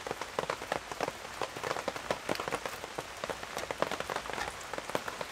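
Steady rain drumming on a pop-up canopy overhead, many separate drops ticking over a constant hiss.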